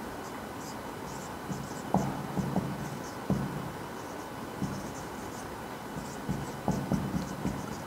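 Marker pen writing on a whiteboard: short scratchy strokes in quick clusters, with a few sharp ticks as the tip meets the board.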